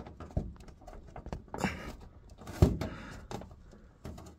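Back cover of a Samsung UN58TU7000F TV being pushed and worked free of its retaining clips: a few scattered clicks and knocks with a short rustle, the loudest knock a little past the middle.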